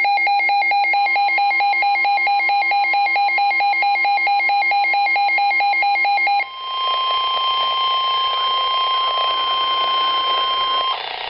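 Emergency alert tones: a rapidly alternating, warbling electronic tone pattern, joined about a second in by a steady single-pitch NOAA Weather Radio warning alarm tone. The warble stops about six seconds in, and the steady alarm tone carries on alone over radio hiss until it cuts off near the end.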